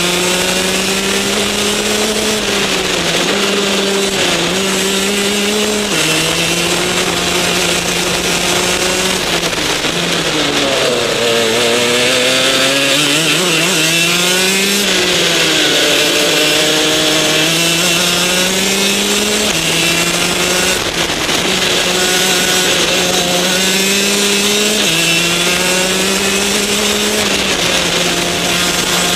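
Rotax DD2 kart's 125 cc two-stroke single-cylinder engine at racing speed, heard onboard. The engine note holds high, drops or jumps sharply in pitch several times, and about ten seconds in sinks low and climbs back as the kart slows and accelerates again.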